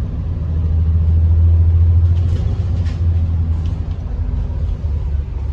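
Bus engine and road noise: a steady low drone that swells about a second in and eases off after about three seconds.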